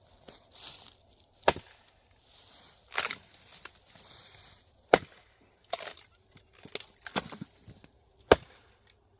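Axe splitting Douglas fir firewood rounds: a series of sharp chops and knocks about a second apart, three of them loudest, as the blade bites and the wood splits apart.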